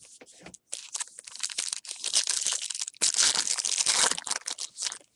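Foil wrapper of a trading-card pack being torn open and crinkled by hand: dense crackling that builds about a second in, is loudest in the second half and stops just before the end.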